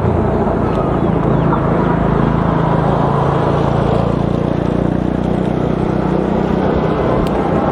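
Steady wind and road noise from a moving electric bike. A small motorcycle engine comes up close alongside and pulls away ahead, fading out about six seconds in.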